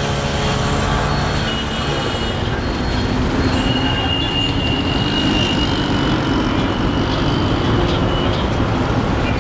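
Busy mixed road traffic: engines of a bus, motorbikes, auto-rickshaws and cars running in a steady din. A steady high whine rises out of it about three seconds in and lasts a couple of seconds.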